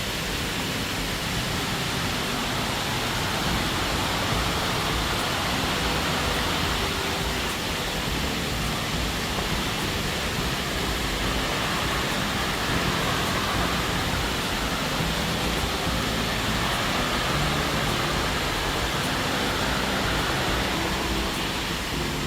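A waterfall, its falling water making a steady, even noise.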